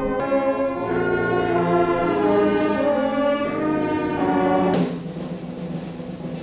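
Military brass band playing slow, held brass chords, broken near the end by a cymbal crash that rings on.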